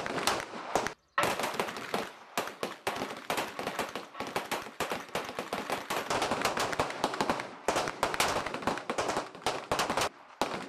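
Pistols firing along a firing line: a rapid, uneven string of many overlapping shots from several shooters at once, with brief pauses about a second in and near the end.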